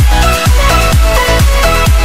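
Electronic dance music: a steady kick drum about two and a half beats a second under a synth melody.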